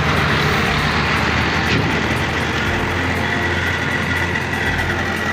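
Machinery running steadily: an engine-like drone with a thin high whine that grows clearer in the second half.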